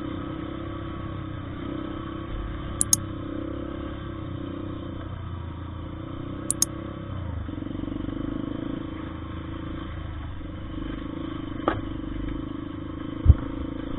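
Motorcycle engine running steadily at an even pitch, with some clattering. There are a few short clicks and one sharp knock near the end.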